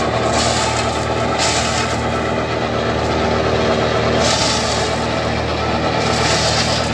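Tractor's diesel engine running steadily, driving a tractor-operated mobile shredder as it cuts plants in the field, with swells of hissing noise every second or two.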